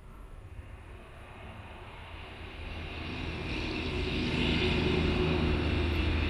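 Low engine-like mechanical drone that grows steadily louder over the first few seconds and then holds, with a hiss above it.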